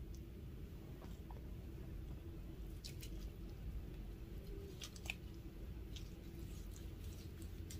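Faint steady low room hum, with a few soft, short clicks: one about three seconds in, a pair about five seconds in and another a second later.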